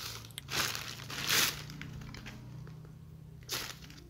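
Clear polythene bags crinkling in three short bursts as the hard plastic TV base stands inside them are handled and pulled out.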